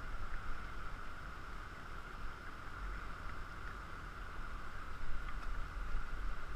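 Steady rushing of river water over a shallow riffle, an even hiss with a low rumble underneath.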